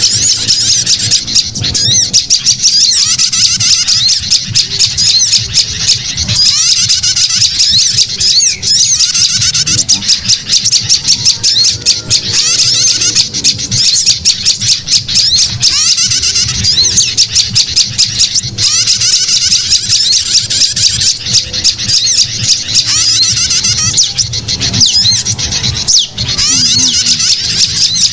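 Bird-lure recording of small songbirds chattering: a dense, continuous stream of rapid, high-pitched twittering calls.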